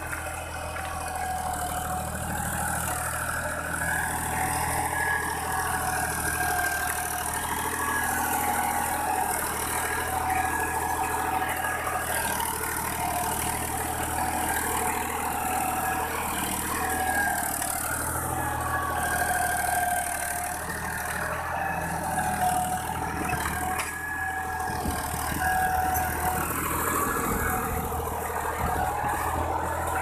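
Fiat 480 tractor's three-cylinder diesel engine running steadily under load while pulling a tine cultivator through the soil.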